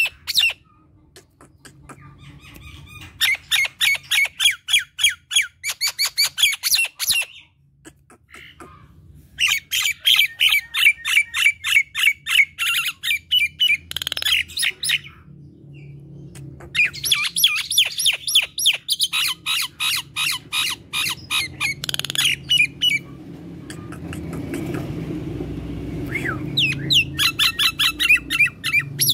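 Common myna chattering loudly in rapid runs of harsh, clicking chirps. Four long bouts are broken by short pauses.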